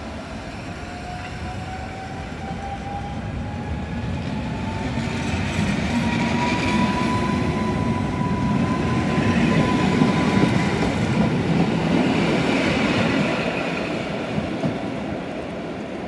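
EN57AL electric multiple unit pulling away from the platform: its traction motors whine, rising steadily in pitch as it gathers speed, over the rumble of wheels on rail. It is loudest as the cars pass about ten seconds in, then fades as the train moves off.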